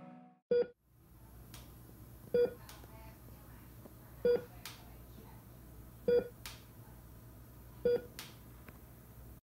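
An electronic device beeping: five short, identical single-pitch beeps about two seconds apart, over a low steady hum.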